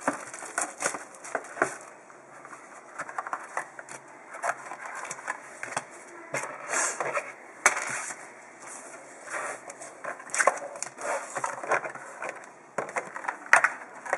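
Plastic shrink wrap crinkling and tearing off a cardboard trading-card box, then the box and its wrapped card packs being handled, with irregular crackles and rustles throughout.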